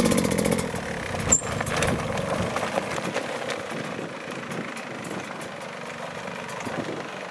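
Dirt bike engine revving as the bike climbs over rocks close by, with one sharp knock about a second in. The engine then fades and steadies as the bike moves off up the trail.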